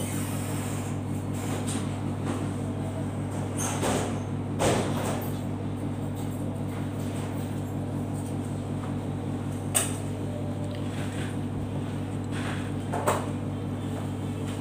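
A steady low hum, with a few separate knocks and clatters, the sharpest about ten and thirteen seconds in.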